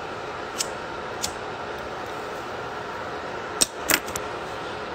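A handheld lighter clicking over a steady background hiss: two faint clicks early on, then a sharper cluster of three clicks about three and a half seconds in.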